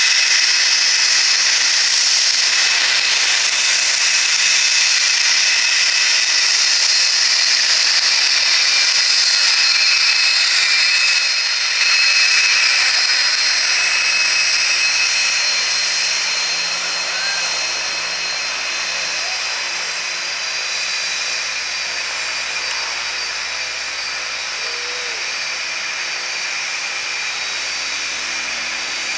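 Twin Pratt & Whitney Canada JT15D turbofans of a Cessna Citation II business jet running at taxi power: a steady high-pitched whine over a hiss. It grows slightly softer a little past halfway.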